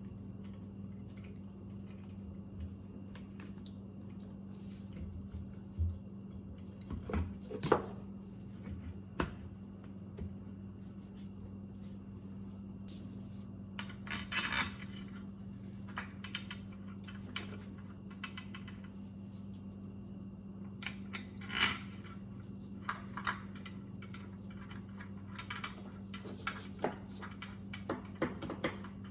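Scattered metallic clinks, knocks and short clatters of metal generator parts and hand tools being handled, over a steady low hum.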